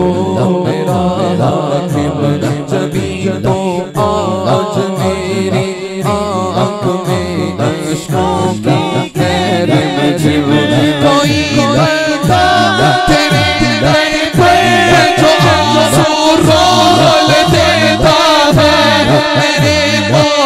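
A man sings an Islamic devotional song into a microphone over a sound system, in a long, ornamented melodic line, with a low, steady, rhythmic chant beneath. About halfway through the voice climbs higher and gets louder.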